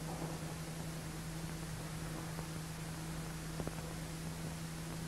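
Steady hiss with a low hum and a few faint clicks, the noise floor of an old film soundtrack, with no other sound.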